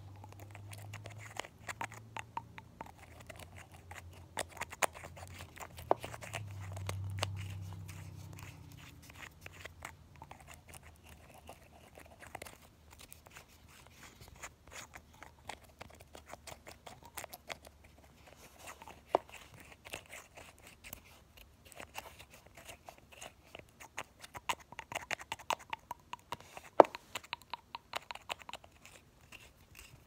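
Essie nail polish bottle handled close up: the brush cap pumped in and out of the neck and the cap tapped and clicked, giving a string of small clicks and taps that grows busier late on, with one sharp click. A low rumble sits under the first several seconds.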